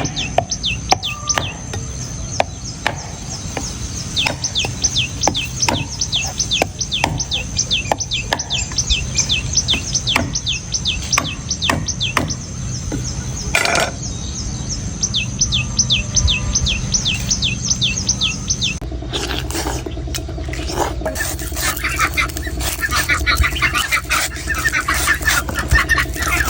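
Sharp knife strikes on coconut, roughly one a second, over a bird's rapid, repeated falling chirps. About two-thirds of the way in, the chirping stops and a busier background of chirps and clucking takes over.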